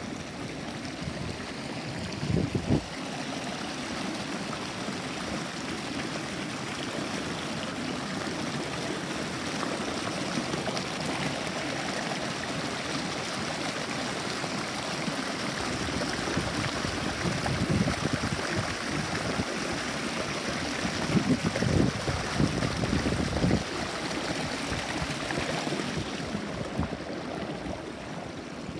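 Clear, shallow brook running over and between stones: a steady rush of water with a few louder surges of splashing.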